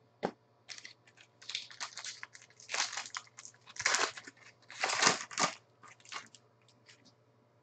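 Foil wrapper of a baseball card pack crinkling and tearing as hands pull it open, in irregular rustling bursts.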